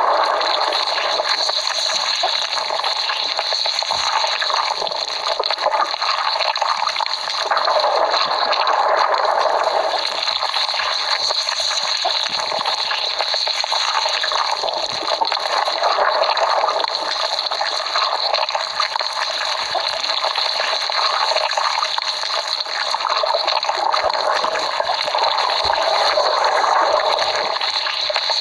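Cartoon stomach growling: one long, unbroken watery sound that swells and eases every several seconds.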